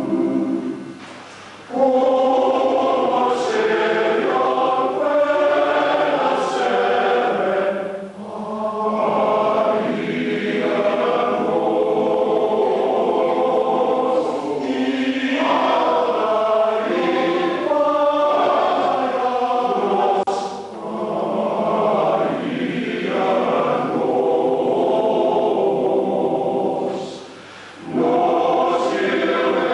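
A choir singing, in sustained phrases broken by brief pauses for breath.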